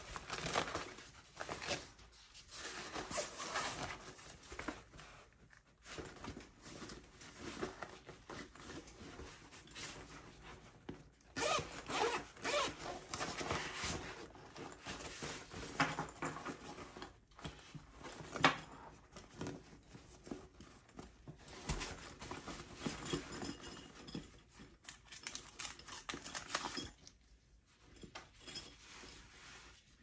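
Hands handling a polyester camera bag: irregular scratchy fabric rustling and scraping as its padded dividers are moved, with a few sharper knocks.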